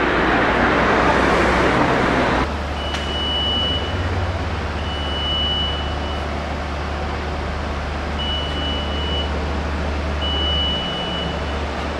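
A loud rushing noise stops abruptly about two and a half seconds in. After it, a boom lift's engine runs with a low, steady hum, and its alarm sounds four long, high, steady beeps of about a second each, in two pairs.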